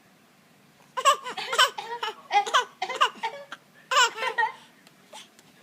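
A baby laughing in a quick run of short, high-pitched bursts, starting about a second in and stopping at around four and a half seconds.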